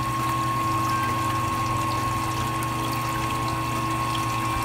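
Small electric wort pump running steadily, recirculating the mash: a low hum with a thin steady whine above it, and wort trickling back into the mash tun through the return hose.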